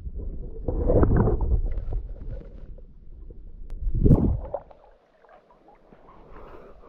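Water splashing and sloshing in a cold cenote pool, mixed with low rumbling handling noise on the microphone; two louder surges, about a second in and about four seconds in, then it goes quieter.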